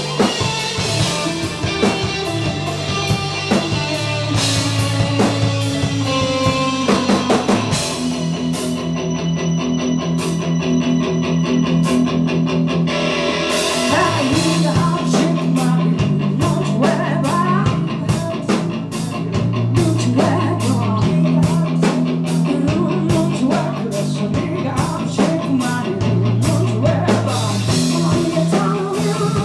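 Live rock band playing: electric guitar and drum kit, with the singer-guitarist singing into the microphone in the later part. The cymbals drop out for a quieter stretch from about eight to thirteen seconds in, then the full drumming comes back.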